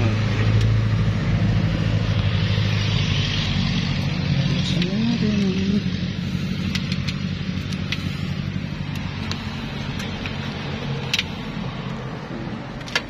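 A motor vehicle's engine running close by, its low hum fading away over the first ten seconds. Near the end come sharp metallic clicks as a coiled cable lock is handled on the glass door's metal pull handles.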